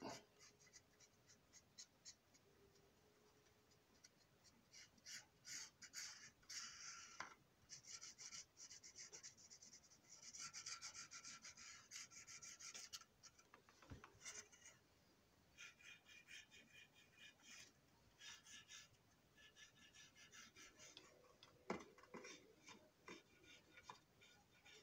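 Faint, quick scratchy strokes of a coloring tool rubbing across the plastic roof walkway ramp of an O gauge box car. The strokes come in runs with short pauses between them, and there are a couple of light taps.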